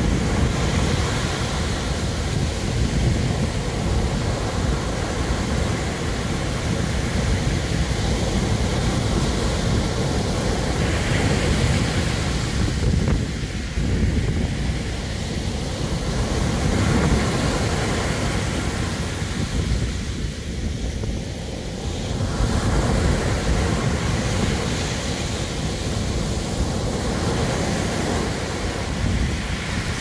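Rough surf breaking and washing up a shingle beach, a continuous rush of water that swells now and then as waves come in, with wind rumbling on the microphone.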